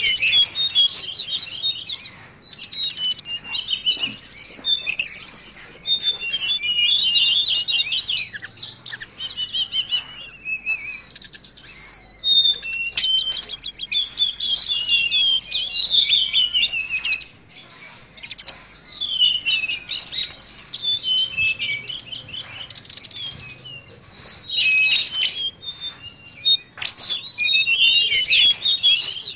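A caged tledekan laut (mangrove blue flycatcher) singing: runs of fast, high twittering phrases with quick rising and falling notes, broken by short pauses, with little clicks and flutters among them.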